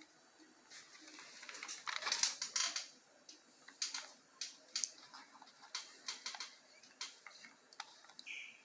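Irregular sharp clicks and light handling rustle, typical of buttons being pressed while switching a stereo's input to USB; no music playing yet.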